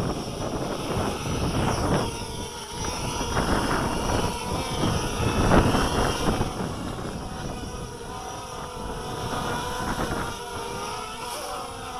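Small FPV racing quadcopter's electric motors and propellers buzzing, their pitch wavering up and down as the throttle changes.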